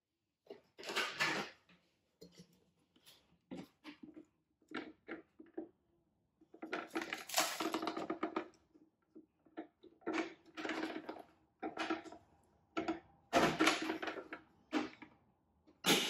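Shark upright vacuum's clear plastic dust bin being emptied: irregular knocks and rattles of the plastic bin, with rustling and crunching as crumbs and debris fall out and are pulled loose by hand, in short bursts with brief pauses.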